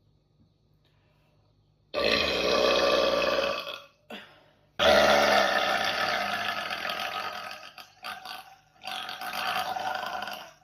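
A woman burping: three long, drawn-out belches, the middle one the longest and loudest, with a couple of short little burps between them.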